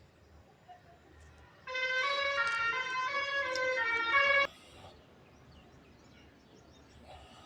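A vehicle's musical multi-tone horn plays a short tune of stepping notes for about three seconds, starting and cutting off abruptly.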